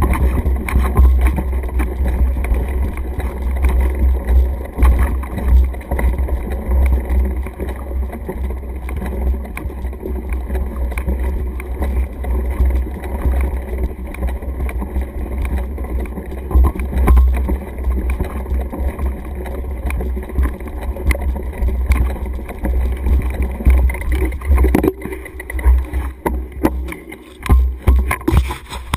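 Wind buffeting a moving mountain biker's action-camera microphone as a steady, pulsing low rumble, with scattered rattles and knocks from the bike rolling over grass.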